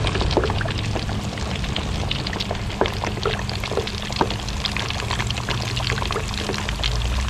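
Pork belly deep-frying in hot oil: a steady sizzle full of small crackles and pops.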